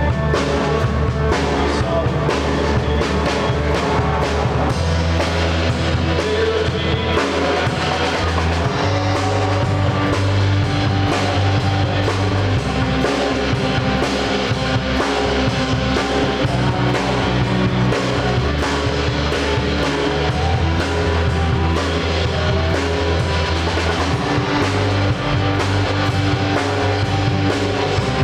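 A live band playing a rock-style song, with a drum kit, guitars and low bass notes that change every few seconds.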